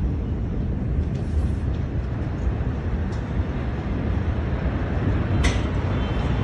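Heavy, continuous low rumble on a phone microphone, with a sharp crack about five and a half seconds in.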